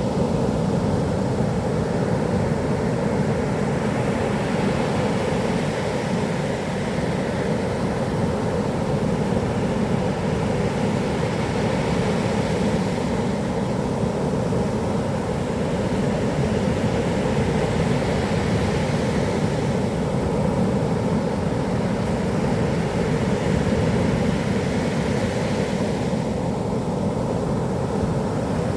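Heavy typhoon-driven surf breaking on a beach: a steady low roar, with a wave washing in and hissing higher every six seconds or so.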